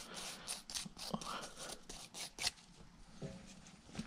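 Gloved hands handling and rubbing a cleaned steel rocker arm: faint scratching and rustling with a few light clicks and knocks of metal parts.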